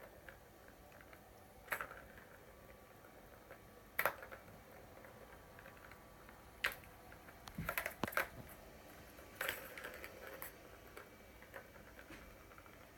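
Cat toy batted about by a cat: scattered sharp clicks and clinks of hard plastic or metal, a few seconds apart, with a quick flurry of them about eight seconds in and another near ten seconds.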